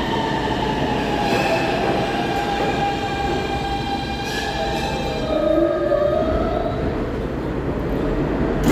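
R160-series New York City subway train braking to a stop at the platform: the whine of its traction motors falls slowly in pitch over the rumble of the wheels, and the sound settles as it comes to rest. A brief knock sounds at the very end.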